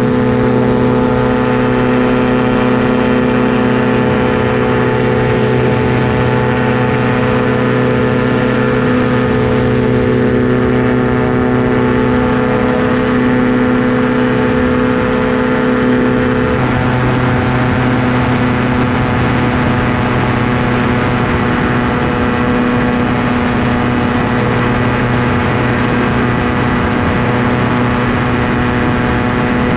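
Ultralight aircraft engine and propeller running steadily in flight, a loud even drone heard from the open cockpit. The tone shifts slightly about halfway through.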